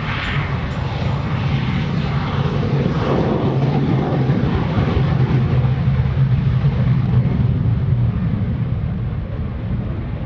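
Twin Rolls-Royce jet engines of the Aftershock jet fire truck running at full thrust on a high-speed run: a loud, steady jet roar with a deep hum underneath that eases a little about eight seconds in.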